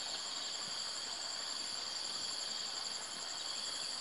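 Steady chorus of insects, several shrill high tones sounding together, one of them a rapid pulsing trill.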